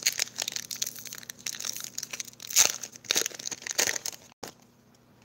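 Foil Pokémon booster pack wrapper crinkling and tearing as it is opened and the cards are pulled out, with several louder crackles. It stops suddenly about four seconds in.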